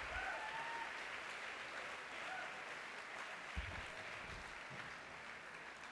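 An audience applauding, the clapping slowly dying down, with a soft low thud about three and a half seconds in.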